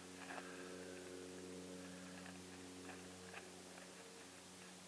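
Very quiet: a faint steady hum, with a few faint soft ticks as a knife cuts the legs off a raw chicken on a foil tray.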